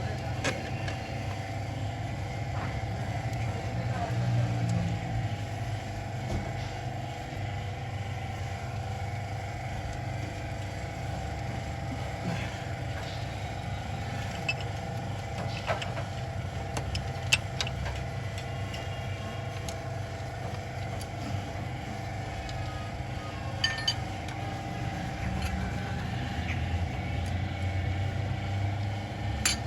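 A Toyota GLi car engine idling steadily, with a few short sharp clicks scattered through.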